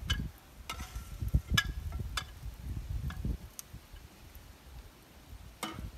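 A metal fish slice clinking and tapping against a frying pan and a plate as fried camp doughnuts are lifted out: a handful of light taps over the first few seconds and one more near the end, over a low rumble.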